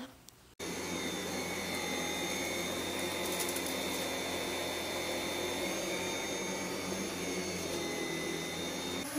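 Cordless stick vacuum cleaner running steadily as it is pushed over carpet, a even rushing hum with a steady high whine. It cuts in abruptly about half a second in.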